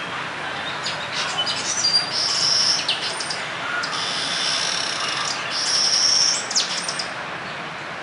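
Glossy starling giving harsh, grating calls mixed with short clicking notes, with two longer grating phrases about two and a half and six seconds in.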